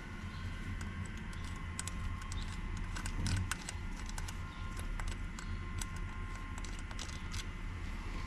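Light, irregular metal taps as a part is tapped a little at a time down into an e-bike's replacement suspension fork, many small clicks spread across the few seconds.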